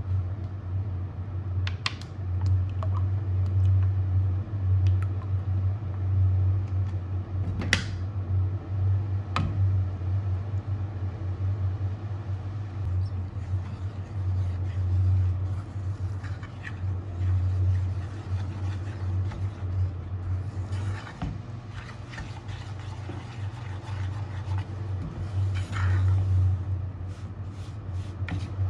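Wooden spoon stirring and scraping a thick flour-and-oil mixture in a metal saucepan, with a few sharp clicks in the first ten seconds and denser scraping in the last several seconds, over a steady low hum.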